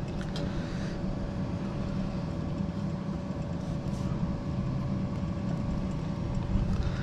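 Steady low background rumble with a faint constant hum, and a few light clicks near the start.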